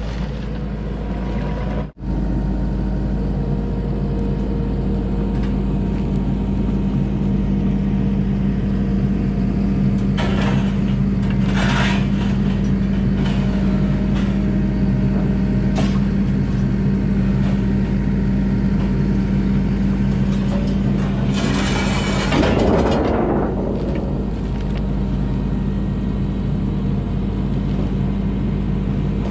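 Diesel engine of a piece of heavy equipment running steadily at a constant speed, with a short louder rush of noise about two-thirds of the way through.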